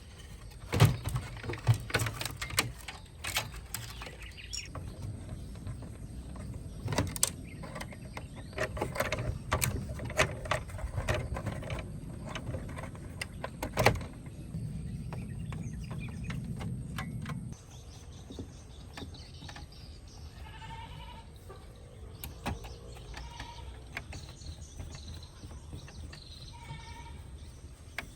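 Clicks, taps and knocks of hands working on small parts of a cassette deck, over a low hum that cuts off suddenly about two-thirds of the way through. Faint bird chirps follow in the quieter last part.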